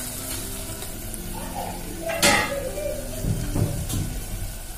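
Metal spoon clinking against a metal cooking pot over masala frying in oil, with a few sharp clinks, the loudest about two seconds in.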